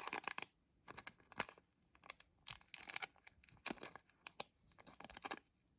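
Small plastic packet being handled and torn open: irregular sharp crackles and short rustles.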